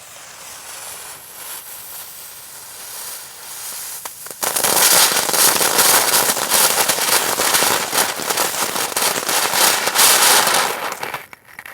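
Ground firework fountain burning: a steady spraying hiss that, about four seconds in, breaks into loud, dense crackling. The crackling thins out and dies away near the end as the fountain burns out.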